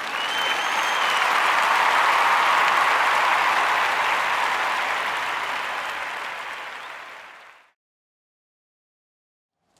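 Crowd applause with a short whistle about half a second in, swelling and then fading out over about seven and a half seconds, followed by dead silence.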